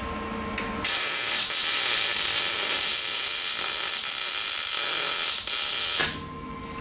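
Arc welding on a steel bracket: the welding arc crackles and sizzles steadily, starting about a second in and cutting off sharply about six seconds in.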